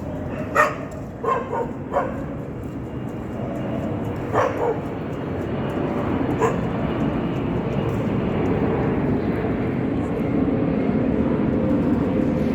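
Dog barking: a handful of separate barks in the first half, the last about six seconds in. Steady background noise runs underneath and grows slowly louder.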